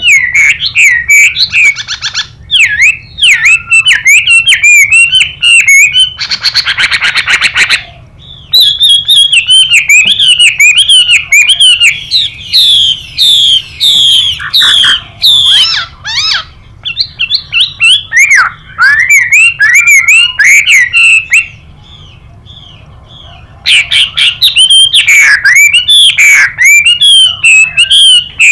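Chinese hwamei singing loud, fast, varied whistled and warbled phrases, broken by two harsh buzzy rasps, about a second in and again around six seconds in, which fit the female's 'xùy' call. The song stops for about two seconds past the middle, then resumes.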